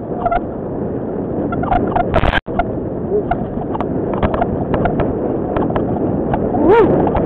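Mountain bike riding down a dirt forest trail: steady tyre rumble and wind on the microphone, with frequent clicks and rattles from the bike over roots. A loud burst of noise about two seconds in cuts out for an instant, and a short pitched squeal comes near the end.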